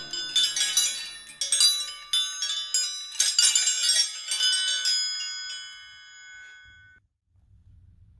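A homemade chime of steel combination wrenches hung on wires from a wooden board, clinking against each other and ringing in bright, overlapping metallic tones. The strikes stop about five seconds in and the ringing dies away, leaving a faint low hum near the end.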